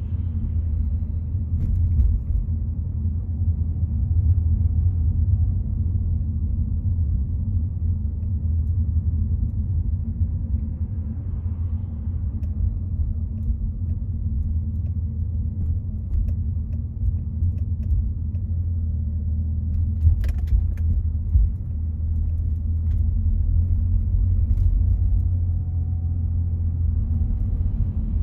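Steady low rumble of a car driving along a road, with a brief click about twenty seconds in.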